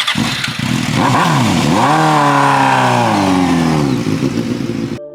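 Motorcycle engine revving: its pitch dips, then climbs about two seconds in and holds high before easing off. It cuts off abruptly near the end.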